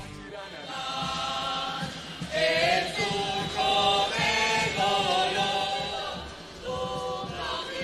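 A national anthem sung by many voices in chorus, in long held notes, growing louder about two and a half seconds in.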